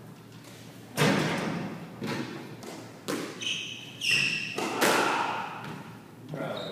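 Squash ball being hit with a racket and smacking off the court walls: sharp smacks about once a second, each followed by an echo. Short high squeaks in the middle are typical of court shoes on the wooden floor.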